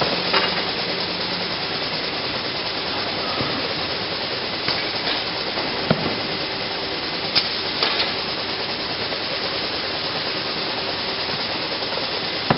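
Automated roller-conveyor sorting line running: a steady machine noise with a faint hum, broken by several sharp knocks and clicks scattered through.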